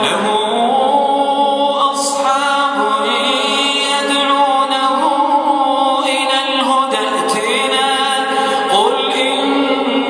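A solo man's voice reciting the Quran in a melodic, chanted style: long held notes, ornamented with turns that glide up and down.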